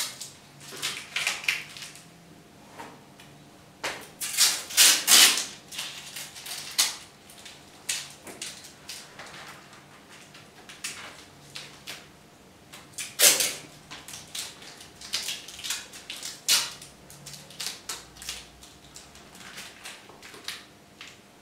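Masking tape being pulled off its roll and torn in short, irregular rips. The loudest pulls come about four to five seconds in and again about thirteen seconds in.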